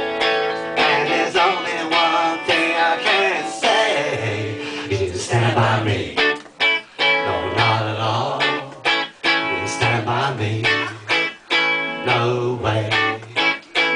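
Solo Telecaster-style electric guitar strummed in a steady rhythm, with short choppy stops between chords in the second half.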